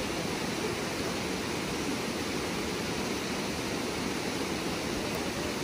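Steady rush of pond overflow water cascading down small grassy channels.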